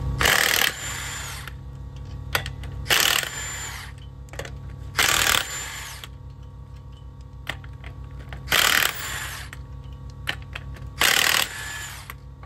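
Impact wrench hammering off the wheel lug nuts, five short bursts of about half a second each, two to three seconds apart, one per nut, with light clinks of the nuts being handled between bursts.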